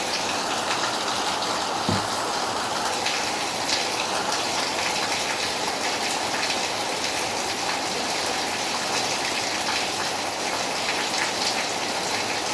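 Steady rain falling, a dense even hiss of drops striking a surface with many small individual drop ticks. A brief low thump sounds about two seconds in.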